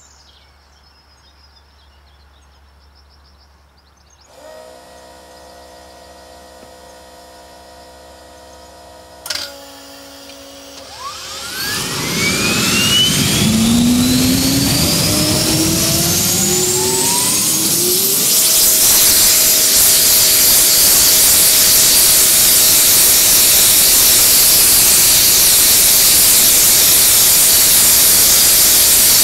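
AI-9 gas turbine APU starting: the electric starter begins spinning it with a steady whine about four seconds in, a sharp pop comes near nine seconds, then the engine lights off with rising whines and a rush of noise as flame bursts from fuel leaking at the main injector pipe. From about eighteen seconds it runs with a steady loud roar and a constant whine.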